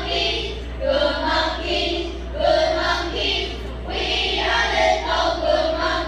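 A group of children singing together in unison, with a steady low electrical hum underneath.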